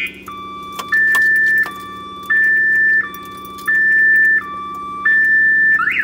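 Viper car alarm siren going off after the armed truck was opened, stepping between a low and a high tone about every three-quarters of a second, then changing to a fast up-and-down warble near the end. Keys jangle and click at the ignition about a second in.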